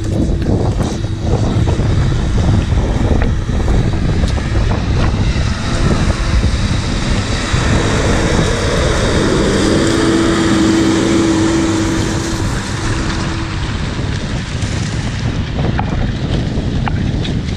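Case IH Maxxum tractor's diesel engine under load, pulling a 56-disc Super Tatú disc harrow past close by while the discs cut and throw soil. The engine's steady note is clearest from about the middle to three-quarters through. Wind buffets the microphone.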